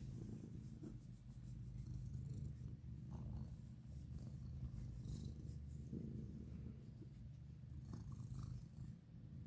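Domestic cat purring steadily, low and continuous, as it is stroked on the cheek and chin.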